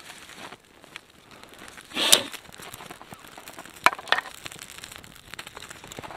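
A small tinder flame crackling in a new campfire, with dry twigs being handled and snapped. There is one loud, crunchy snap about two seconds in, then two sharp snaps close together around four seconds.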